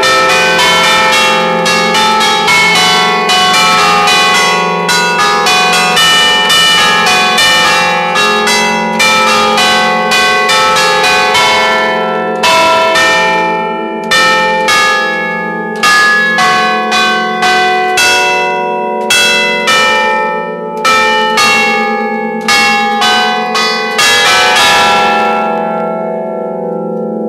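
Church tower bells rung at close range, many strokes a second in quick runs of different pitches. About twelve seconds in the strokes thin out and come more widely spaced, and near the end the striking stops and the bells are left ringing and fading.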